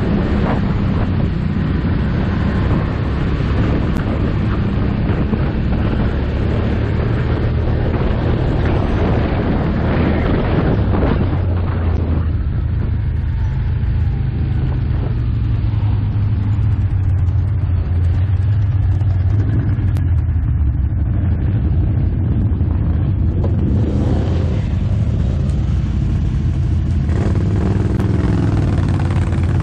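Can-Am Outlander ATV engine running at low trail speed, a steady low engine note throughout. Rougher, higher-pitched noise on top drops away for a stretch in the middle and comes back near the end.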